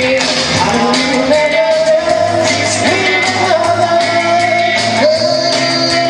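Rock and roll song with a voice singing long held notes over a steady backing.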